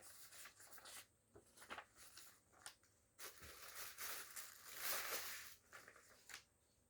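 Faint rustling and crinkling of packaging being handled, with a few light clicks. A longer, louder rustle comes from about three seconds in.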